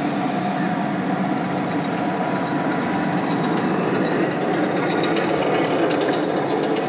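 A 1:6 scale radio-controlled T-34 tank model driving over dirt: its drive motors and gearing run steadily while the tracks clatter, with quick clicking growing stronger in the second half.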